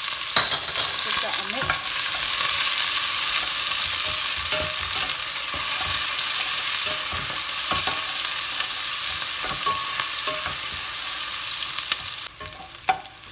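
Sliced onions sizzling in hot olive oil in a stainless steel pot as they begin to brown, with a wooden spoon scraping and knocking against the pot as they are stirred. The sizzle drops off sharply about a second before the end.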